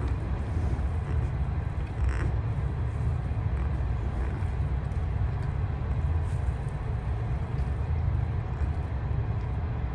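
A newborn giant panda cub gives a short squawk about two seconds in, over a steady low rumble.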